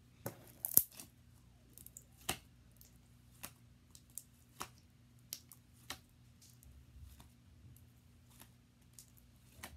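Sticky slime being squished and stretched by hand, giving scattered sharp pops and clicks at irregular intervals, the loudest about a second in and again a little after two seconds.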